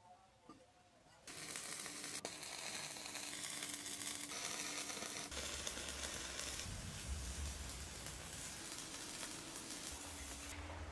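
Stick (arc) welding a steel disc onto a steel pipe: the arc crackles and sizzles steadily, starting about a second in and stopping just before the end. A couple of light metal clicks come before it.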